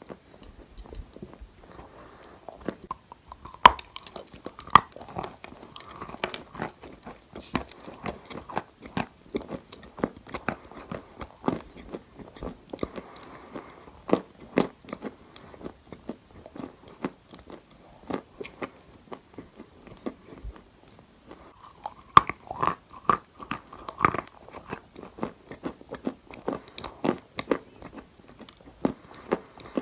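A person biting and chewing chunks of grey clay, close up, with dense, irregular crunching. A few sharper, louder bites come about four seconds in and again around twenty-two seconds in.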